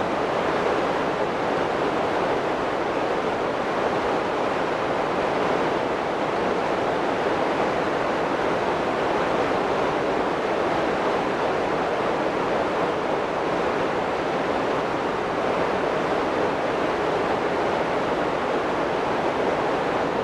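Steady rushing of Webuye Falls on the Nzoia River: water pouring over the falls, unchanging throughout.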